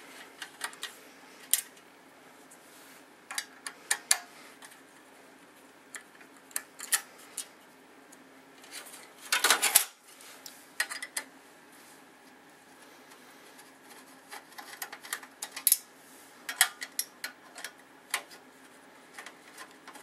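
A Phillips screwdriver backing the screws out of a hard drive's mounting in a steel drive caddy: scattered small metallic clicks and scrapes. About halfway through there is a louder clatter as the drive and caddy are handled and turned.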